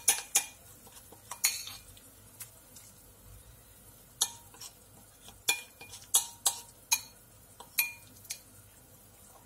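A metal spoon clinking and scraping against a bowl while thick seasoning paste is scraped out of it into the pan, in about a dozen irregular sharp clinks with a short ring.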